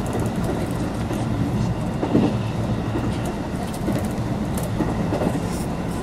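Electric passenger train running along the track, heard from inside the front car: a steady rumble of wheels and running gear, with scattered faint ticks and one louder knock about two seconds in.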